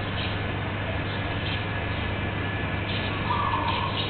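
Steady low background rumble, with a few faint crisp crunches of a dog chewing lemongrass stalks. A held mid-pitched tone comes in about three seconds in.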